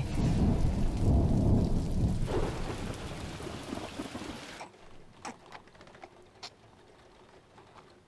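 Deep thunder-like rumble in two swells that fades away about four and a half seconds in, followed by near quiet with a few faint clicks.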